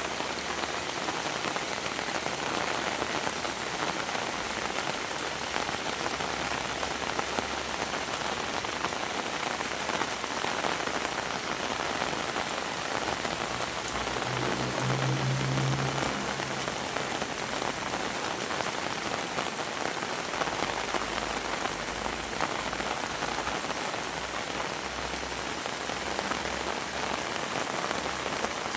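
Heavy rain falling steadily and hissing on surfaces. About halfway through, a brief low pitched hum lasts a couple of seconds.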